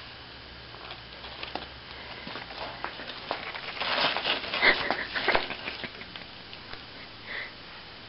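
A cat scrambling and grabbing at a feather wand toy: scattered clicks and scratchy rustling, densest and loudest about halfway through.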